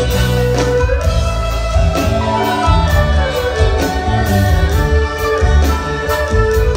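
Live ensemble of erhu-type Chinese bowed fiddles playing a campus folk song melody in unison, the tune sliding between notes, over a drum kit and bass with a steady beat.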